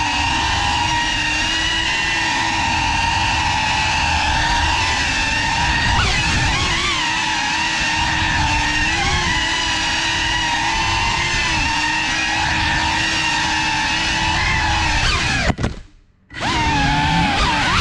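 Electric motors and propellers of a GEPRC FPV quadcopter heard up close from the onboard camera, whining steadily with the pitch wavering a little with throttle. Near the end the whine falls and cuts out almost completely for under a second, then the motors spin back up.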